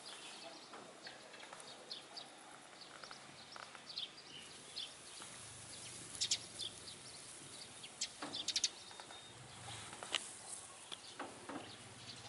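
Irregular rustles and clicks of footsteps through a freshly mown hay meadow, loudest in short clusters about halfway through, with faint bird chirps.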